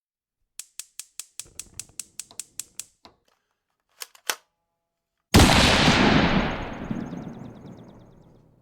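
A run of sharp clicks, about five a second, followed a couple of seconds later by a sudden loud crash that dies away over about three seconds, from a TV drama's soundtrack.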